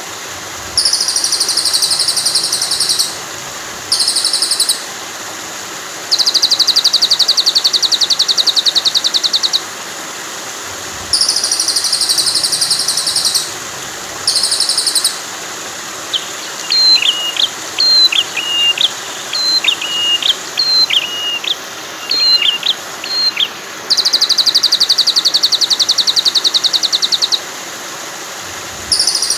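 Recorded songbird trills for training a white-rumped shama, mixed over a steady rush of flowing water. Rapid high buzzy trill phrases repeat every few seconds, with a run of short whistled notes jumping up and down in pitch in the middle.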